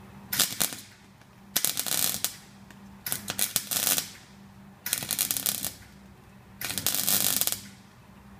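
Snap-on MIG welder arc crackling in about five short bursts of under a second each, with brief pauses between them, as a broken steel exhaust bracket is stitch-welded back onto the exhaust.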